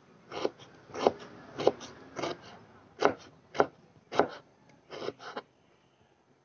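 Kitchen knife slicing through small green eggplants and tapping the cutting board, about a dozen quick, sharp cuts at an uneven pace, often in pairs, stopping about five and a half seconds in.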